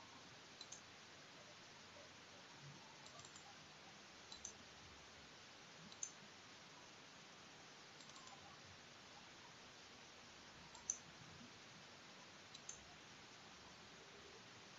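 Faint computer mouse clicks: single clicks several seconds apart over a low steady hiss, the clearest about eleven seconds in.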